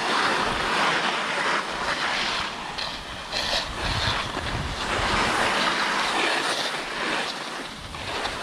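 Skis sliding and scraping on packed snow, a hiss that swells and fades every second or two as the skis turn and brake, with wind rumbling on the microphone.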